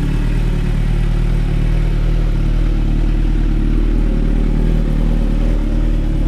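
Suzuki Bandit 650's inline-four engine idling steadily.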